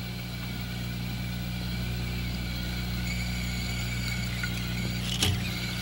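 Sony reel-to-reel tape recorder switched on, giving a steady electrical hum with a faint high whine and hiss. A small click comes near the end.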